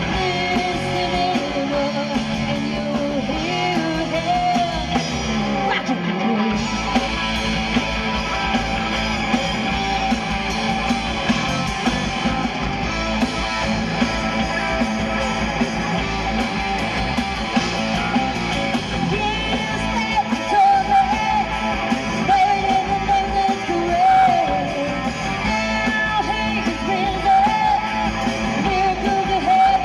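Live rock band playing amplified: distorted electric guitar and drums, with a woman singing into a microphone. The bass end fills out about six seconds in.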